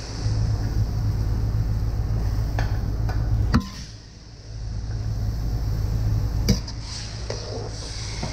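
Bean sprouts and carrot being stir-fried in a steel wok with a steel ladle: scraping and sizzling, with two sharp clanks of the ladle on the wok about three and a half and six and a half seconds in. Under it runs a steady low rumble from the stove, which dips briefly near the middle.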